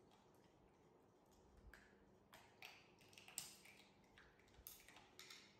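Near silence with faint, scattered clicks and taps of young monkeys eating cut sapodilla pieces and handling them on plastic plates, more frequent from about two seconds in.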